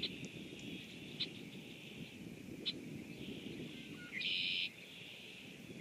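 Marsh ambience in spring rain: a steady high-pitched chorus of animal calls with sharper single notes every second or so, and one loud half-second call about four seconds in, over a low fluttering noise.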